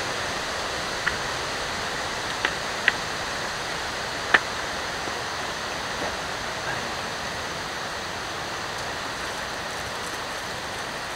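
Steady, even outdoor hiss with four short, sharp clicks or knocks in the first half, the loudest a little past four seconds in.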